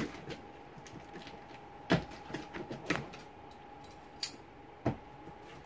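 Cardboard shipping boxes being opened by hand: packing tape cut with scissors and pulled away, and box flaps handled, giving a handful of separate sharp clicks, knocks and rustles.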